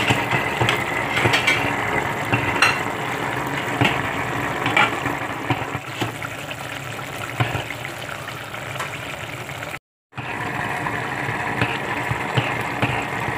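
Sayote and broth simmering in a pan on the stove: a steady bubbling with small pops over a constant hum. The sound cuts out for a moment about ten seconds in.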